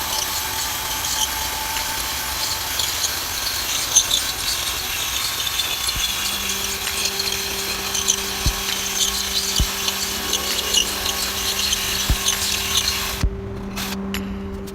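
A power tool working, with a dense, gritty crackling noise that cuts off about 13 seconds in. A steady hum sets in about halfway through, with a few sharp clicks.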